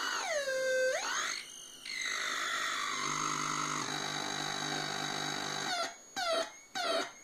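Solar-powered breadboard mini synthesizer making electronic noise: a buzzy tone slides down in pitch, swoops back up, settles into a noisier drone, then breaks into short chirping blips about two a second near the end.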